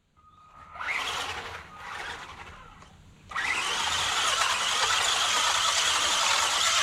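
Small electric RC monster truck's motor whining in two short rising-and-falling bursts of throttle, then, from about three seconds in, running flat out in a steady high-pitched whine.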